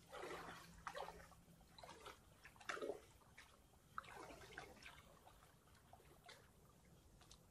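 Faint, irregular water sounds: small splashes and trickling, a few sharper ones about three seconds in.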